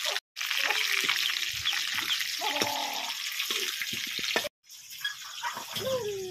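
Chicken leg pieces and sliced onions sizzling and crackling in hot oil in an iron kadai. The sound cuts out abruptly twice, once right at the start and once about four and a half seconds in.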